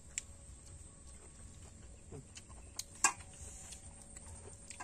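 A few faint, short clicks of a spoon against a metal bowl as cooked chicken is pulled apart, the sharpest about three seconds in, over a quiet background.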